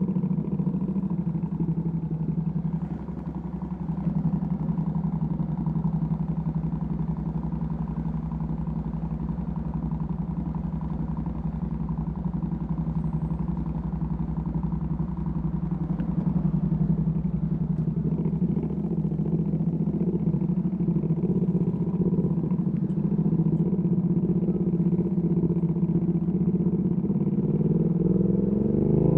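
Ducati Panigale V2S V-twin with a Termignoni exhaust running steadily at low revs, then beginning to rise in pitch as the throttle opens near the end.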